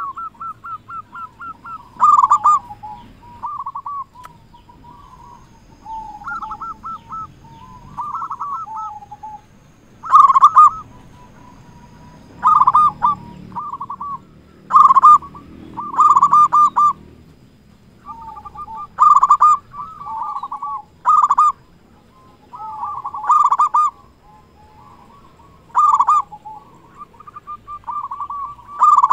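A local zebra dove (perkutut) in eager full song, cooing: phrases of quick rolling notes, some led by a louder sharp note, repeated every two to three seconds.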